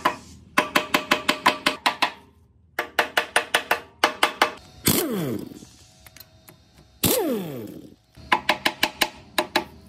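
Hammer blows on the rusty metal housing of an old air compressor, in three runs of quick ringing strikes, about seven a second. Between the runs come two longer metallic rings that fall in pitch over about a second.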